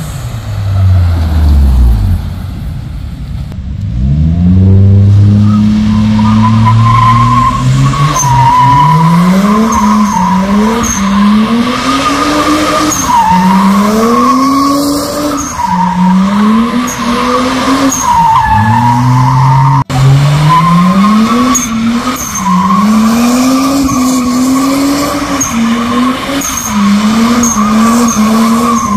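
Toyota Mark II's turbocharged 1JZ-GTE straight-six revving hard again and again, its pitch climbing and falling back every second or two, while the rear tyres squeal steadily as the car drifts with wheelspin. In the first few seconds the engine drops in pitch before the revving and squeal begin.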